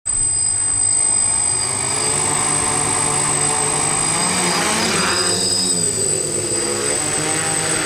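DJI F550 hexacopter's brushless motors and propellers whirring in flight, the pitch rising and falling for a couple of seconds in the middle as the throttle changes. The craft's motor bearings are bad.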